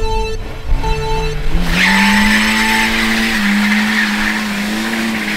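Car engine revving hard while its driven wheels spin on a snow-covered road. About a second and a half in, the engine note climbs and holds, slightly wavering, and a loud hiss from the spinning tyres joins it.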